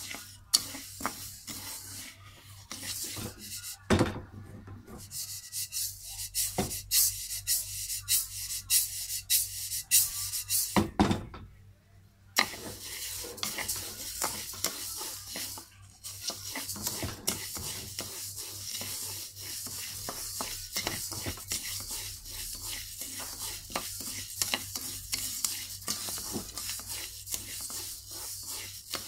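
Wooden spatula stirring and scraping dry glutinous rice around a wok, the raw grains rasping and rattling against the pan in repeated strokes as the rice is dry-roasted. There is a short pause in the stirring about twelve seconds in.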